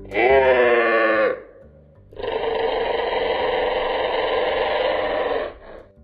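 Reconstructed Gallimimus call: a short pitched cry of about a second that dips in pitch and levels off. After a brief pause comes a longer, rougher call of about three seconds.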